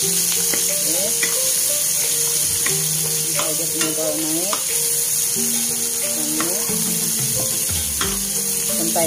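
Chopped garlic, shallots, onion, ginger and torch ginger flower sizzling in hot oil while a spatula stirs them, with small scrapes and taps of the spatula on the pan. The aromatics are being fried until fragrant and turning golden.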